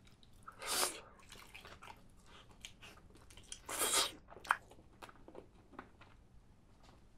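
Close-miked eating of spicy chicken: biting and chewing, with many small crackly chewing clicks. Two louder crunches come about a second in and about four seconds in.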